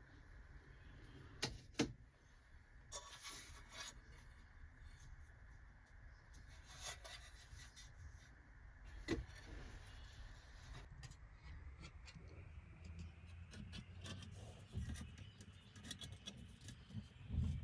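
Faint handling of small metal model parts on a workbench: light rubbing and scraping with scattered sharp clicks and taps, the loudest about two seconds in and again about nine seconds in, over a low steady hum.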